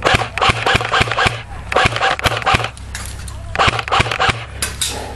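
Ares Tavor airsoft electric gun firing three bursts of rapid shots, one clicking report after another.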